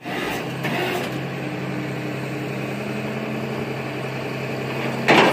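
A vehicle engine idling steadily, with a short, loud clatter about five seconds in.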